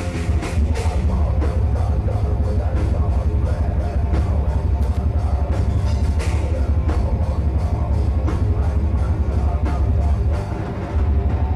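Heavy metal band playing live: pounding drum kit with a heavy, continuous low end under dense band sound. The level dips briefly near the end, then the full band comes back in.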